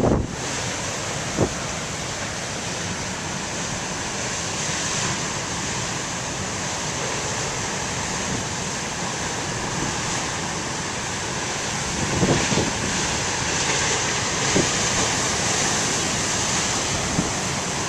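Heavy ocean surf breaking and rushing steadily, with wind buffeting the microphone in a few gusts late on.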